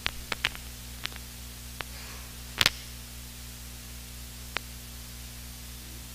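Room tone through a lectern microphone: a steady electrical hum and hiss, with a few small clicks and one louder double click about two and a half seconds in.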